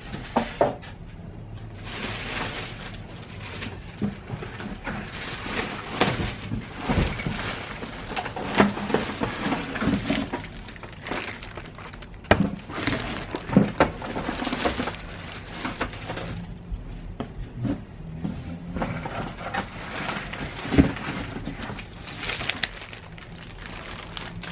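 A printer is lifted out of its cardboard box and unwrapped: rustling and crinkling of plastic and packing material, with scattered knocks and thuds of cardboard.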